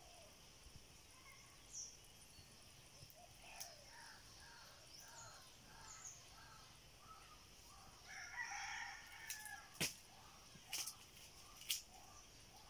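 A rooster crowing once, faint, starting about eight seconds in and lasting about a second and a half, after a run of short softer calls. Three sharp clicks come near the end.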